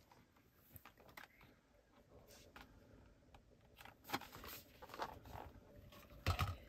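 Small cardboard eyeshadow box being handled and slid open: faint scattered clicks, taps and light rustles of the box sleeve and tray, with a louder knock near the end.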